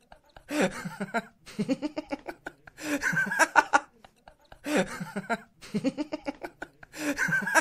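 A person laughing in short bursts about every two seconds, the same laughs repeating in a loop.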